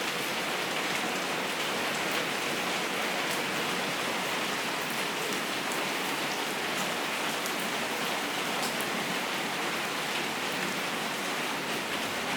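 Steady rain falling during a thunderstorm, an even hiss with scattered ticks of single drops.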